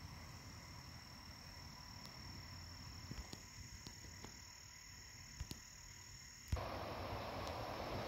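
Faint outdoor ambience of insects calling in a steady high tone, with a few faint clicks. About six and a half seconds in it switches abruptly to a louder, steady hiss.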